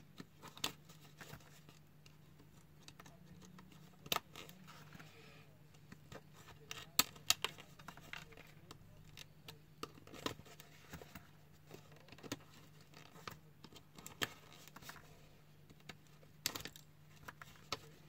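Hands handling Ford S-Max gear-knob parts and the gearshift gaiter: irregular small clicks and taps of plastic pieces and hand tools, with light rustling of the gaiter material, over a steady low hum.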